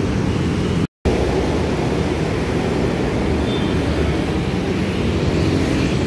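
Steady low rumble of road traffic, broken by a brief cut to silence about a second in.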